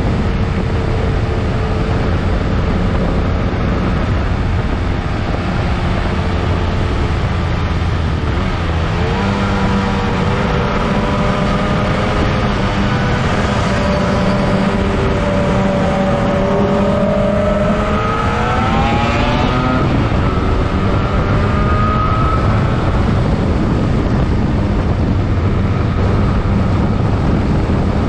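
Onboard sound of a Yamaha RD 350 two-stroke twin motorcycle at speed on a race track: heavy wind rush over the microphone with the engine note rising and falling. About two-thirds of the way through the engine pitch climbs steeply, then drops away suddenly.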